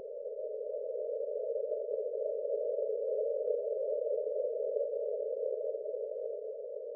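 Synthetic breath-pacing sound: a soft, narrow band of whooshing noise that slowly swells and then fades back, one long paced breath of a slow rhythmic breathing track. It is a little higher-pitched than the breath phases either side of it.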